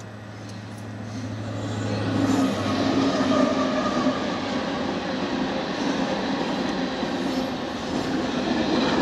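Union Pacific diesel-hauled freight train approaching and passing: a low steady hum at first as the locomotives near, growing louder over about three seconds, then the steady rumble and clatter of the freight cars' wheels rolling by on the rails.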